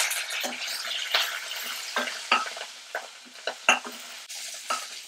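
Chopped onions and curry leaves sizzling in hot oil in a steel kadai, with a spatula stirring and scraping against the pan in a series of sharp, irregular strokes.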